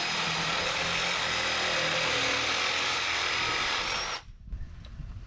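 Sawzall reciprocating saw running steadily as it cuts up a pool heat pump for scrap metal, then shutting off suddenly about four seconds in, followed by a few light clinks.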